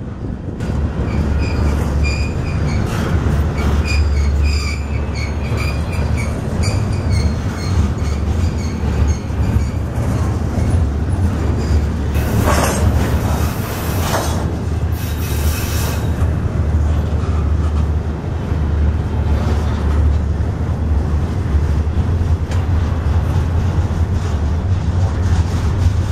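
Double-stack intermodal freight train rolling past with a steady, heavy rumble of wheels on rail. Thin, high wheel squeals sound through the first several seconds, and a couple of harsher bursts of noise come around the middle.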